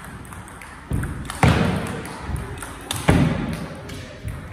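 Table tennis rally: the ball clicks off paddles and table, echoing in the hall, with two loud thuds, about one and a half and three seconds in.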